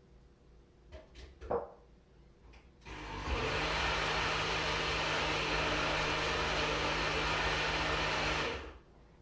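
A small electric appliance motor switches on about three seconds in, spins up to a steady whirring hum and runs for about five seconds before cutting off. A couple of small knocks come before it.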